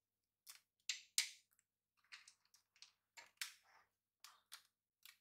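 Faint, irregular light clicks and short rustles of a hand picking chocolate chips out of a small cup and scattering them over cake batter in a round tin.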